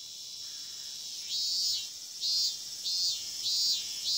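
Insects chirping: a steady high buzz, with about five louder trills of under half a second each, starting about a second in.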